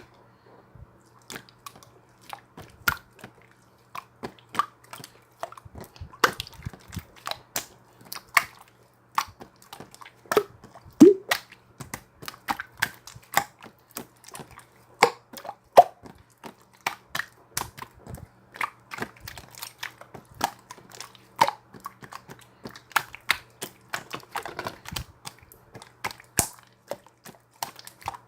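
Slime being squished and pressed by hand, giving irregular sharp clicks, pops and crackles, several a second.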